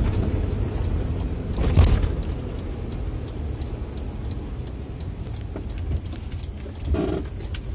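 Isuzu FVR truck's six-cylinder diesel engine running while the truck drives, heard from inside the cab with road rumble. A sharp thump comes about two seconds in, and after it the sound is a little quieter.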